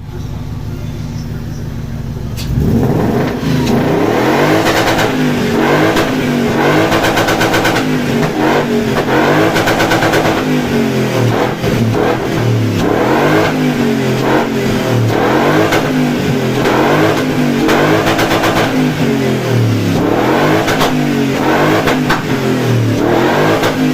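BMW M60B40 4.0-litre V8 engine idling steadily for about two seconds, then revved repeatedly, its pitch climbing and falling back every second or two.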